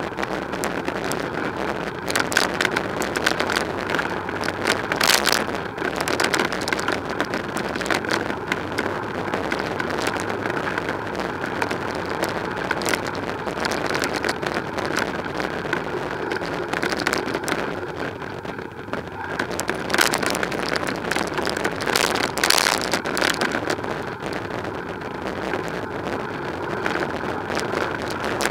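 Steady rushing ride noise from a bicycle on city streets: tyres on the road surface and air moving past the camera microphone. A handful of short, sharp rattles and knocks are scattered through it.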